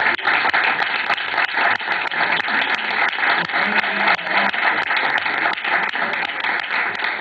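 Audience applauding: a steady rush of many overlapping hand claps.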